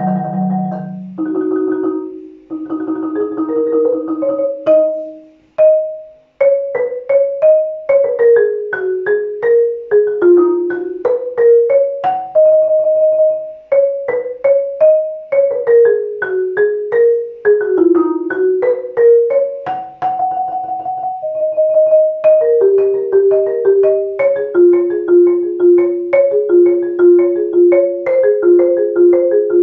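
Solo marimba played with yarn mallets. Low rolled notes die away to a brief pause about six seconds in, then a fast melodic line starts up, with runs of struck notes and a few sustained rolls.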